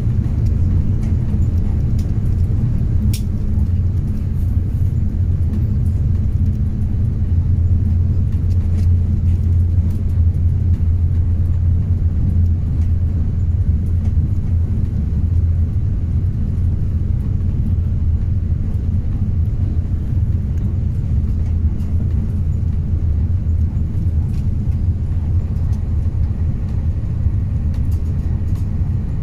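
Steady low rumble of a passenger train running at speed, heard from inside the carriage, with a few faint clicks.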